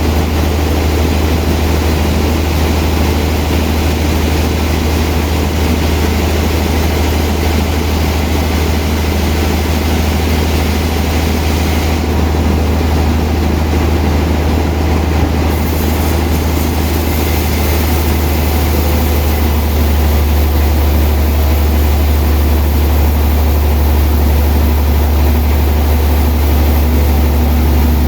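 Sawmill machinery running with a loud, steady low hum, growing slightly louder in the second half.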